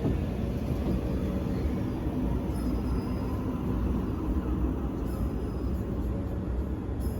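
Train at a station platform, a steady low rumble with a faint hum.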